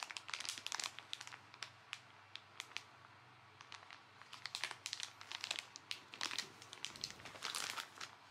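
Plastic food pouches crinkling as they are handled, in irregular bursts of crackles that are busiest in the first second and again from about four seconds on.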